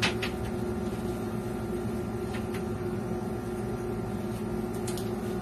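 Steady low hum of a motor or electrical appliance, with a short click at the start and a few faint clicks later.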